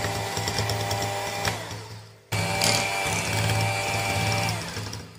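Electric hand mixer running, its beaters creaming butter and sugar in a glass bowl. The motor winds down with falling pitch about two seconds in, starts again at once, then winds down and stops near the end.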